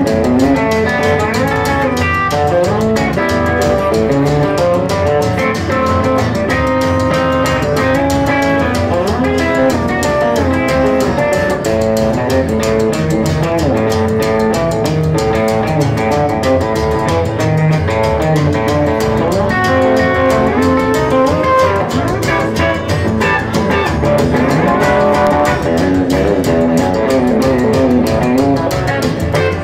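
A live trio playing an instrumental break between vocal lines: upright bass walking under a strummed acoustic guitar, with an electric guitar taking the lead with sliding notes.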